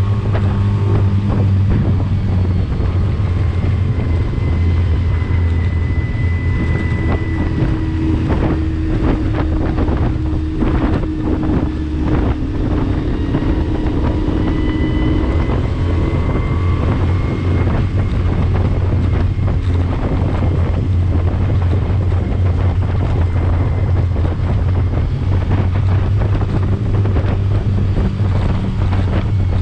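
15 hp outboard motor running flat out, pushing a small rigid-bottom inflatable dinghy at about 16 to 22 mph, with heavy wind on the microphone and water rushing past. Near 22 mph the motor is at its rev limiter. About a third of the way in there is a run of thumps.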